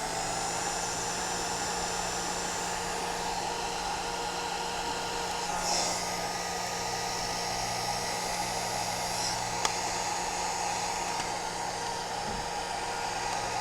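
Electric heat gun blowing steadily with a low motor hum, shrinking heat-shrink sleeving down onto motorcycle wiring.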